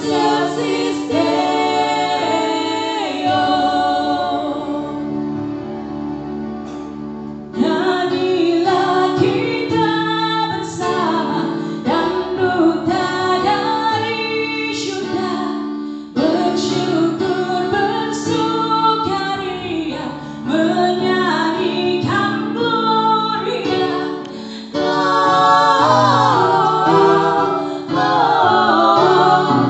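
A band's music with a voice singing over keyboard and other instruments. The sound changes abruptly three times, about a quarter, half and five-sixths of the way through.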